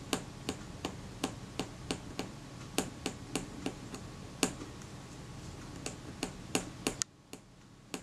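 Irregular sharp clicks and taps, about two or three a second, from small metal camera parts and tools being handled on a workbench. The steady background hum cuts out about seven seconds in.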